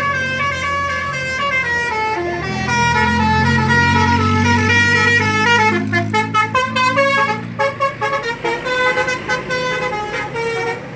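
Indonesian bus telolet horns playing multi-note tunes, the pitch stepping from note to note; from about six seconds in they sound in rapid short toots. A bus engine runs underneath, loudest just before the toots begin.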